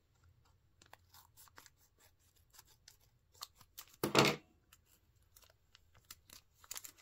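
Small scissors snipping a shiny plastic packet, with scattered faint crinkling ticks and one short, louder rustle of the packet about four seconds in.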